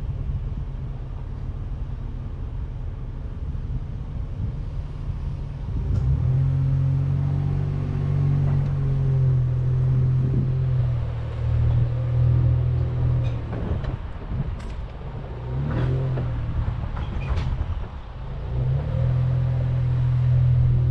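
Chevrolet Colorado ZR2 pickup driving up a dirt trail. Its engine's low drone rises under load about six seconds in, eases off for a few seconds, and picks up again near the end. A few sharp knocks come in the middle.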